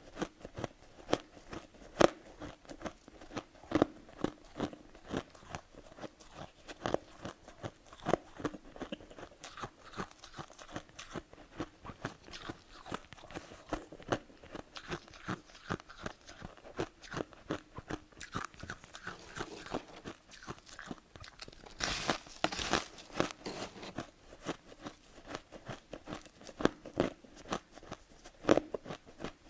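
Someone biting and chewing freezer frost: a steady run of short, crackly crunches, with a denser, hissier stretch of crunching about 22 seconds in.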